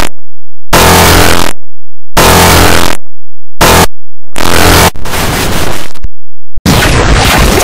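Loud, heavily distorted and clipped electronic noise from a digital audio effect, cut into five bursts with abrupt dead-silent gaps between them. The first burst starts a little under a second in, and the last one runs on past the end.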